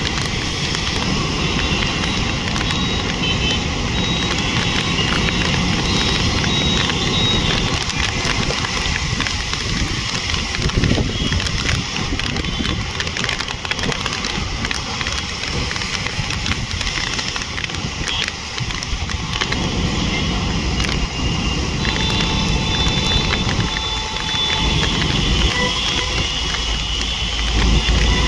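Rain and wet-road traffic: a steady hiss of rain and tyres on water with vehicle engines running beneath. A deeper rumble from a passing heavy vehicle builds near the end.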